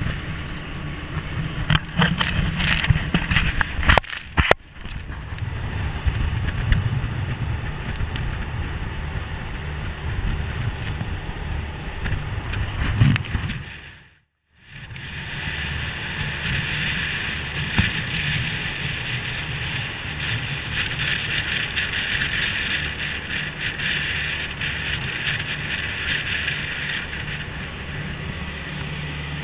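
Boat engine running at cruising speed, a steady low drone, with wind buffeting the microphone and the hiss of water rushing along the hull and wake. The sound breaks briefly about four seconds in and drops out completely for a moment near the middle, where clips are joined.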